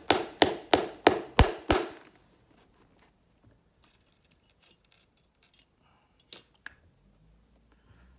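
Light hammer driving a nail into a leather boot sole, about three quick blows a second, six blows that stop about two seconds in. Then only faint small clicks and taps of handling.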